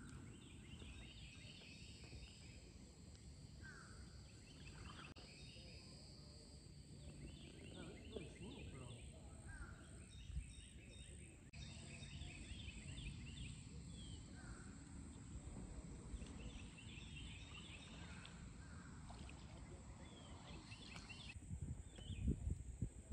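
Birds calling and singing faintly from the wooded riverbanks, repeated short chirps and trills with the odd rising call, over a low steady rumble. A few louder low thumps come near the end.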